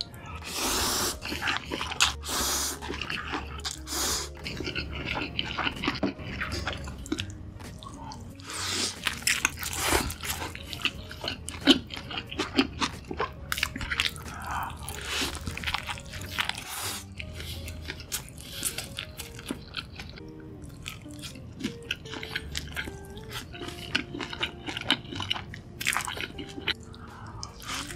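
Close-miked eating: noodles slurped from a bowl, then big bites of a cheeseburger and wet, noisy chewing, with many sharp clicks and smacks throughout. Quiet background music runs underneath.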